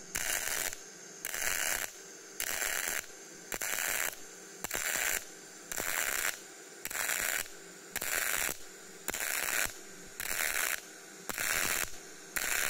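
Semi-automatic CO2 (MIG) welding arc at about 180 A running up a vertical fillet joint, a crackling sizzle that swells and eases about once a second as the torch is weaved. At this high current it throws a lot of spatter.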